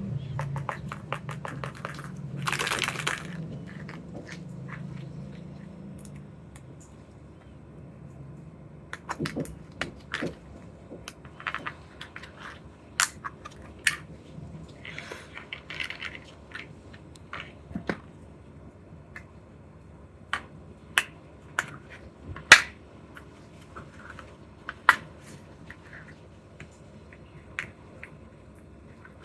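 Candy and toy packaging being handled and opened: scattered sharp plastic clicks and taps, with short crinkling rustles about three seconds in and again around sixteen seconds.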